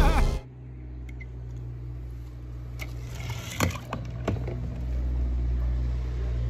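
A steady low rumble with a few scattered light clicks and knocks. A burst of film music and voices cuts off just under half a second in.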